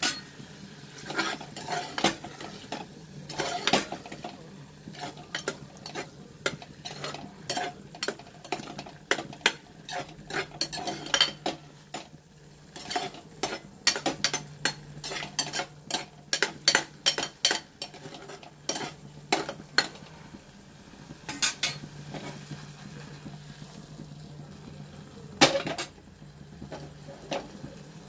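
A ladle stirring thick, simmering jam in an aluminium pressure cooker pot, knocking and scraping against the pot's sides in irregular clinks, with one louder knock near the end. The jam is being cooked down until it thickens.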